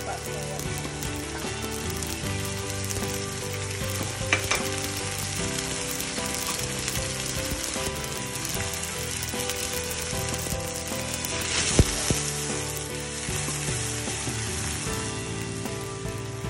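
Whole spices (cinnamon sticks, star anise) sizzling steadily in hot cooking oil in a steel wok, stirred with a slotted metal spatula. The spatula clinks sharply against the wok twice, the louder clink past the middle.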